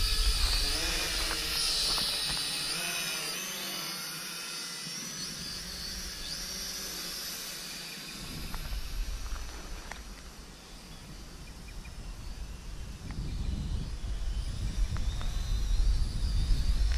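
Small toy quadcopter's propeller motors whining overhead, the pitch wavering as it manoeuvres and fading as it climbs away. In the second half a low gusty wind rumble on the microphone grows louder.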